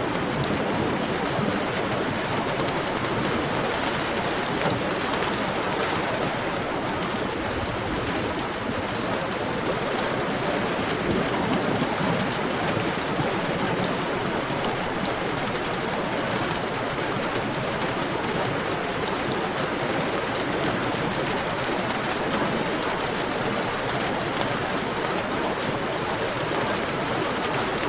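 Heavy rain falling steadily, a dense even hiss with many fine patters of drops.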